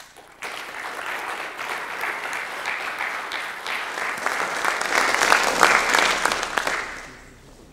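Audience applauding: the clapping starts about half a second in, grows louder, and dies away near the end.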